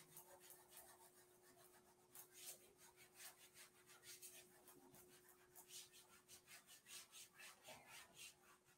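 Faint rubbing of a whiteboard eraser wiping marker writing off a whiteboard, in a run of short strokes that come quicker toward the end.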